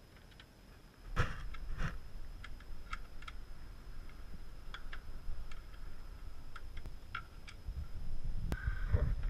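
Irregular light clicks and taps of a hand tool against the plastic expansion tank and radiator assembly while its mounting screw is undone, with a few sharper knocks about a second in and near the end.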